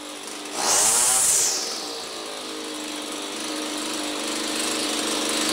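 RedMax BC2300 string trimmer's two-stroke engine running, spinning a newly fitted aftermarket string head. It revs up sharply about a second in and drops back, then runs steadily.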